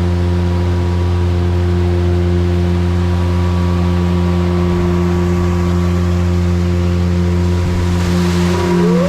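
Speedboat engine running at a steady, deep drone. Near the end a higher tone briefly glides up and back down.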